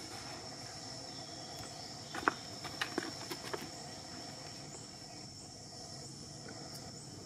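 Insects trilling in one steady high-pitched tone. A short run of sharp clicks comes between about two and three and a half seconds in, the first the loudest.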